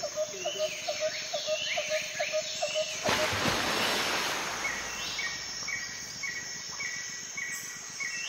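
Rural outdoor evening ambience: a steady high insect hum with small animals calling. A short call repeats about three times a second, then a rush of noise swells about three seconds in, and a higher short call repeats about twice a second toward the end.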